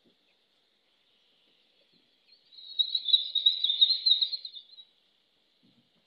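A high, rapidly trilling animal call, about two and a half seconds long, starting about two seconds in.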